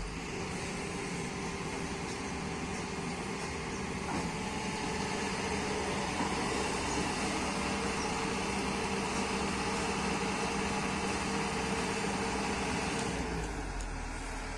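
Kobelco excavator's diesel engine running steadily with a low hum, growing a little louder about four seconds in; the engine note drops away about a second before the end.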